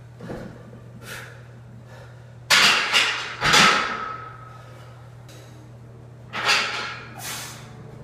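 A weightlifter's loud, sharp breaths between reps of a heavy barbell back squat: quick gusts about a second in, two big ones around the middle and another near the end, over a steady low hum.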